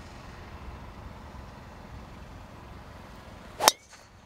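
A driver strikes a golf ball off the tee with one sharp crack about three and a half seconds in, over a steady low background rumble.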